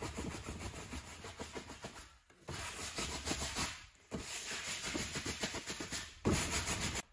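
Wide bristle paintbrush scrubbing acrylic paint across a stretched canvas textured with glued-on aluminium foil: scratchy rubbing strokes in quick runs, with short pauses about two and four seconds in.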